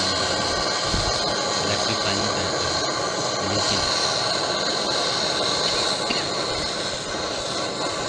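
Hand-held gas-cartridge torch burning with a steady hissing flame, heating a copper suction pipe to braze shut a pinhole refrigerant leak.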